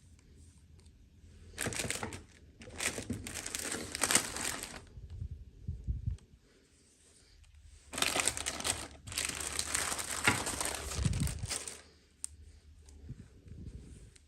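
Plastic toy packaging crinkling and tearing as it is opened by hand, in two spells of a few seconds each: one starting about one and a half seconds in, the other about eight seconds in.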